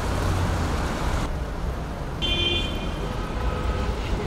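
Street ambience: steady traffic noise with a low rumble, and a short high-pitched tone a little past two seconds in.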